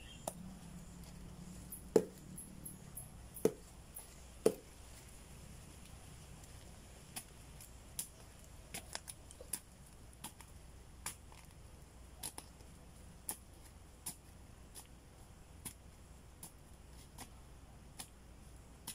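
Sharp knocks and taps of a hand tool working the soil around a plant. The three loudest come about two, three and a half, and four and a half seconds in, followed by lighter scattered ticks. Under them runs a faint steady high-pitched hum.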